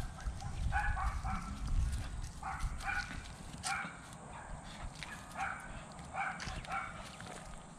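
Small dog giving about ten short, high whines, spaced irregularly, over a low rumble in the first couple of seconds.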